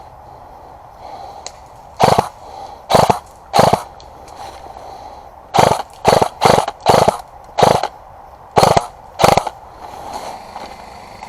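Airsoft gun firing about ten loud, short, sharp shots or short bursts in three clusters: three, then five in quick succession, then two.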